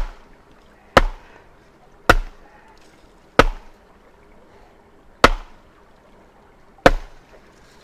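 Sharp blows driving a fence post into the ground, six strikes with the gaps between them lengthening from about a second to nearly two seconds.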